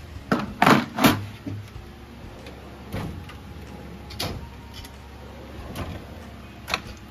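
Snap-on tool chest drawers being shut and pulled open: a quick run of loud metal knocks and rattles about a second in, then a few lighter knocks as a lower drawer is slid open near the end.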